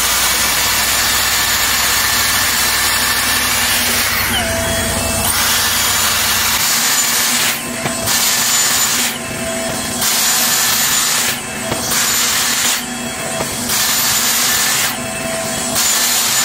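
Dyson Airstraight wet-to-dry straightener blowing hot air steadily as it is drawn down through damp hair, set to its wet-hair mode. From about halfway on, the airflow noise drops briefly every second or two.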